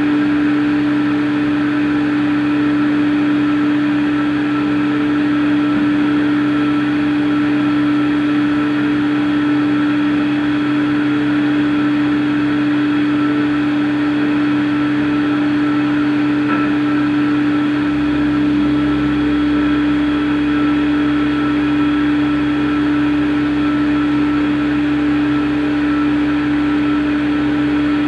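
CNC machine running steadily, with a strong, constant hum-like tone and fainter steady tones above it; the lowest rumble changes about eighteen seconds in.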